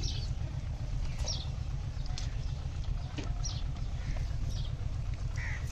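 Outdoor background: a steady low rumble with faint, short high chirps about once a second and a few soft clicks.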